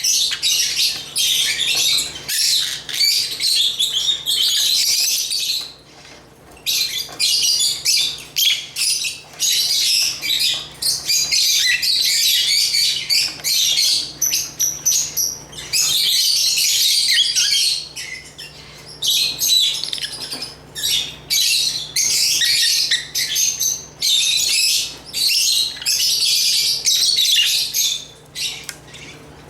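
Lovebirds (Agapornis) chirping and squawking in rapid, high-pitched bouts of several seconds, broken by short lulls.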